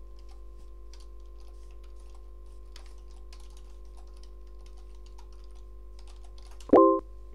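Computer keyboard typing: scattered key clicks over a faint steady hum. Near the end comes one short, loud electronic chime, the chat site's sound as a typed message is sent.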